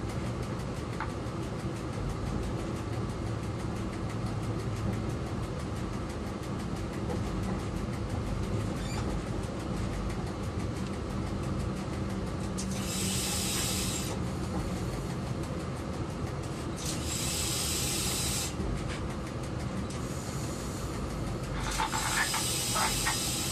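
Diesel locomotive running steadily, heard from inside the driver's cab, with the engine's drone and track noise. In the second half there are four bursts of air hiss, each a second or two long, and a few sharp clicks near the end.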